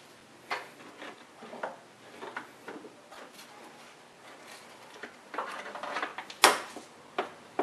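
Hands and hose clamp pliers working the spring clamp on the upper radiator hose: light scattered clicks and rustles, with one sharper metal click near the end.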